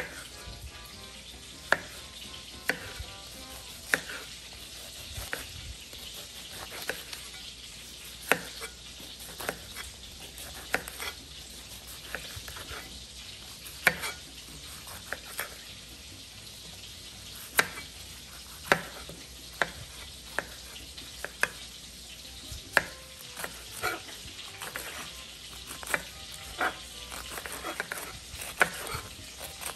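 Food sizzling in a frying pan, a steady hiss, with irregular sharp clicks and taps of a utensil against the pan as it is stirred or turned.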